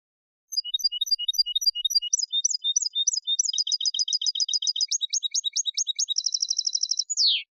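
European goldfinch (jilguero) singing one song phrase in the clean Málaga competition style, used as a teaching tape for young birds. It starts about half a second in with separate high chirps, speeds into fast trills, runs into a rapid buzzy trill, and ends with one falling note just before the end.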